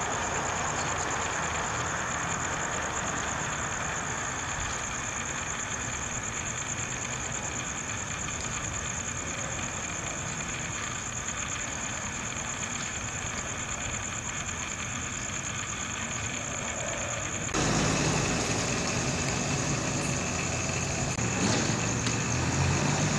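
Car engines idling steadily under a constant high-pitched tone. About 17 seconds in the sound changes, and a louder, lower engine hum comes in.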